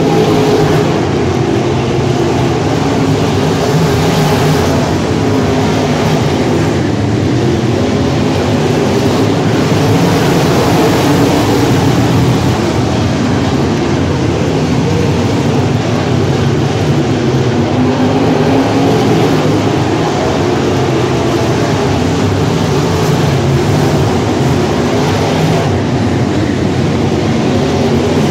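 A pack of IMCA Modified dirt-track race cars racing around the oval, several V8 engines running loud and unbroken together as the field circulates.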